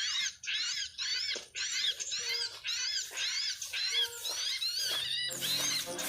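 Many small birds chirping in quick, overlapping repeated calls. Background music comes in near the end.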